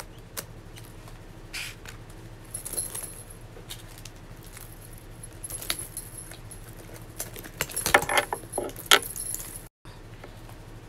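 Metal chain strap of a quilted sling bag jingling and clinking as it is lifted and handled, in scattered short spells, loudest about eight to nine seconds in.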